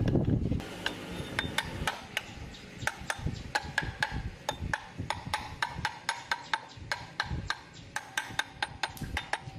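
Quick, irregular light taps and clicks of metal tools on metal parts, several a second, some with a short ring.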